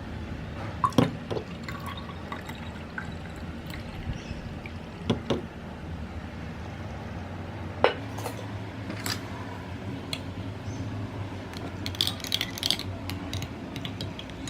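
Kitchen handling sounds: scattered clinks and knocks of glassware and dishes, with liquid being poured, over a steady low hum.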